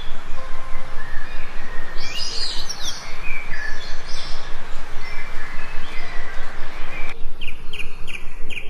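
Several wild songbirds chirping and whistling in short calls over a steady background hiss. About seven seconds in, the background cuts abruptly and a quick run of short chirps follows, about five a second.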